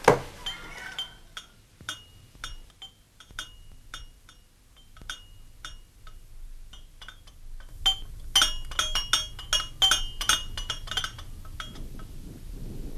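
Repeated light clinking of small hard objects, each clink ringing briefly at the same high pitch. The clinks are scattered at first, then come in a quick flurry from about eight to eleven seconds in.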